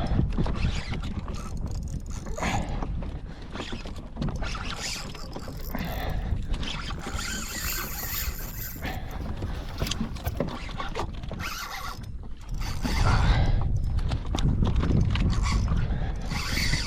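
Fishing reel being cranked and working against a large redfish, mixed with water and kayak hull noise. The noise gets louder and heavier about three-quarters of the way through.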